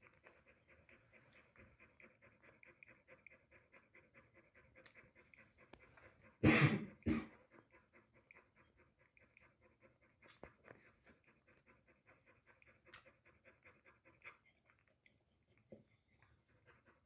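A whelping Labrador bitch panting quickly and evenly, the fast panting of a bitch in labour. About six and a half seconds in, two short, much louder bursts break through, and the panting stops briefly near the end.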